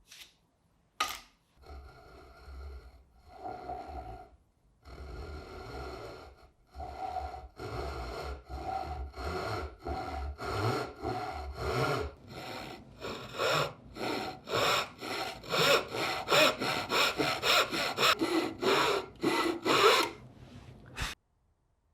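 Dovetail saw cutting dovetails in wood by hand: runs of quick back-and-forth strokes with short pauses between them, growing louder and faster in the second half and stopping about a second before the end.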